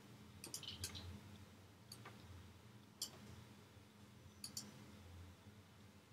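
Near silence broken by a handful of faint, short, high-pitched ticks or chirps, roughly one a second.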